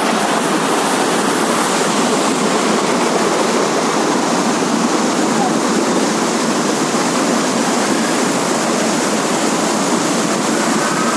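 Loud, steady rushing of water, with no breaks.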